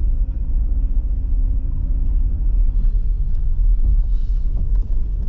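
A car driving slowly, heard from inside the cabin: a steady low rumble of engine and road noise, with a faint even hum through the first half.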